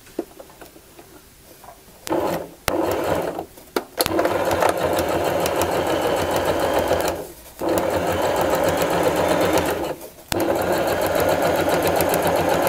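Domestic electric sewing machine stitching: a few short start-stop bursts as the seam is backtacked, then steady running in runs of a few seconds, stopping briefly twice.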